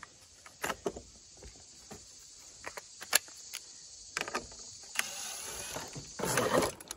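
Scattered clicks and knocks of a wooden drill-guide jig and its steel drill guide being handled and repositioned on a timber beam, with a busier stretch of handling sound near the end.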